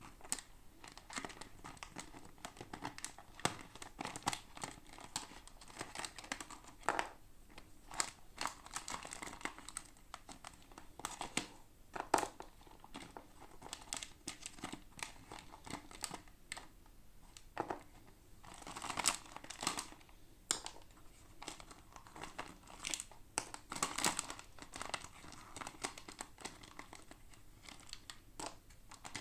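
Toy packaging crinkling and tearing as it is opened by hand, in irregular crackles and short bursts.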